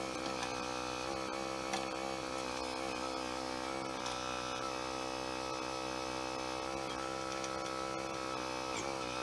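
A steady machine hum made of several even tones, with a few faint clicks over it.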